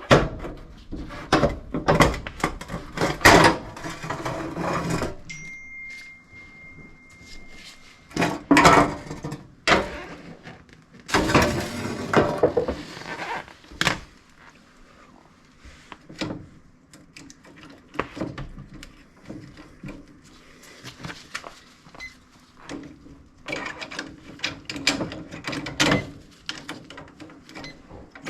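A built-in dishwasher being worked out of its cabinet opening: scraping, knocking and clunking in several bouts, with a steady high tone for a couple of seconds about five seconds in.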